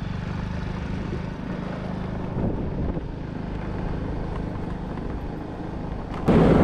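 Motor scooter engine running steadily as the scooter rides along, heard from the rider's seat. Near the end the sound abruptly gets much louder and a voice comes in.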